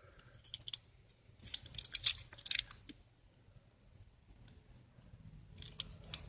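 Light clicks and crinkly rustling from diecast toy cars and their packaging being handled, busiest about two seconds in.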